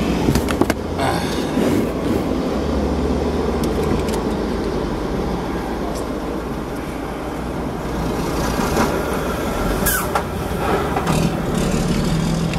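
Steady low rumble of a car's cabin on a city street, with traffic noise from outside. A few sharp clicks come about half a second in.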